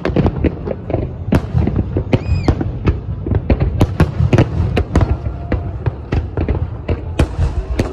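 Fireworks display: aerial shells bursting in rapid, overlapping bangs and cracks, several a second, over a continuous low rumble.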